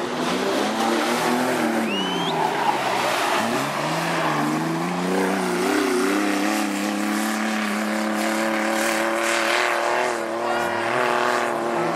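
Off-road 4x4 engine revving hard under load, its pitch dropping and climbing several times, then holding high and steady for the second half.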